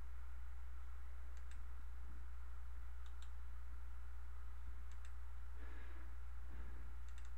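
Computer mouse clicking about four times, a second or two apart, over a steady low hum.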